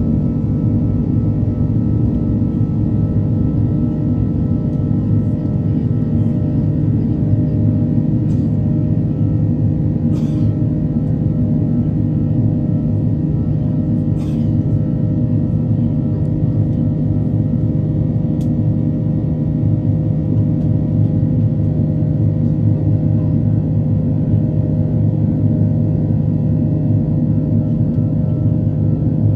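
Steady drone of an Airbus A330's twin jet engines and the airflow, heard inside the cabin during the climb after take-off, with several steady hum tones. A few faint clicks come through in the middle.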